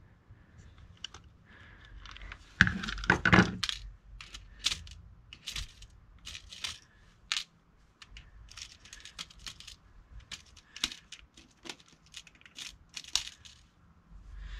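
Irregular small metallic clicks and clinks from handling steel E-clips and pressing one onto a chainsaw part, with a louder cluster of knocks about three seconds in.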